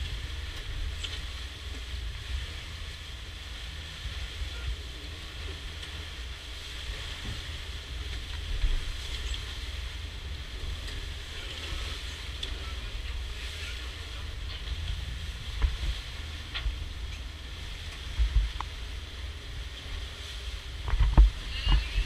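Wind buffeting the microphone over the rushing hiss of a catamaran's foaming wake in rough, wind-whipped sea: a steady low rumble with a hissing wash. Near the end a few louder thumps of wind hit the microphone.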